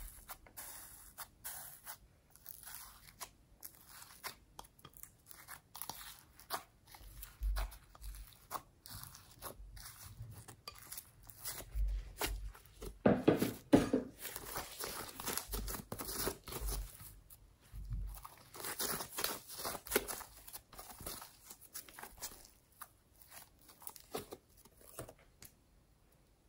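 Hands pressing, squeezing and mixing homemade slime: irregular sticky crackling clicks, with a louder, denser stretch about halfway through as a lump of white slime is squeezed onto other slime, dying away near the end.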